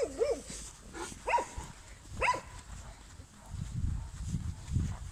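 A dog barking: three sharp barks about a second apart, followed by low thumps in the second half.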